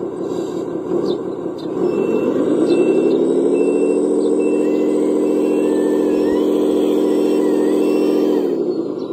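Engine sound of a radio-controlled heavy vehicle, revving up about two seconds in, holding at a steady speed, then dropping back near the end.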